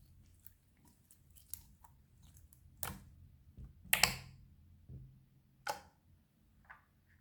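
Slime being worked by hand, making a series of irregular sticky clicks and pops, the loudest about four seconds in.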